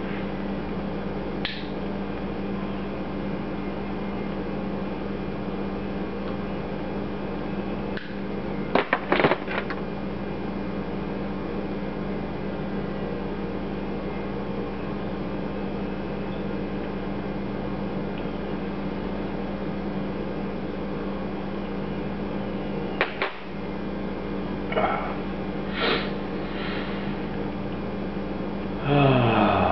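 A steady electric hum, with a few sharp clicks and taps: a quick cluster of three about a third of the way in and a few single ones later. A short low voice-like sound with falling pitch comes near the end.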